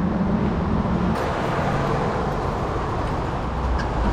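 Steady rushing noise from riding a bicycle along a path: wind on the microphone and tyres rolling, with a low hum that fades about a second in.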